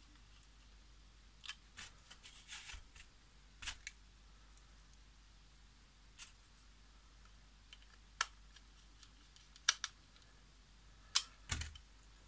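Scattered light clicks and taps of a plastic smart-plug housing and a small precision screwdriver being handled during reassembly, with a louder knock near the end.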